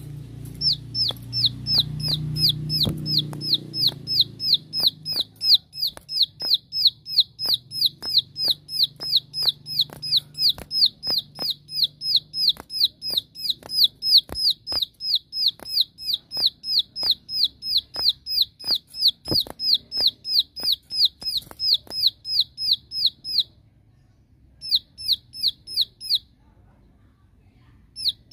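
Plain prinia (ciblek sawah) giving its rapid 'shooting' call, a challenge call to rivals: a long run of sharp, downward-sweeping notes, about three to four a second. Near the end it stops, gives a short burst, falls silent and starts again.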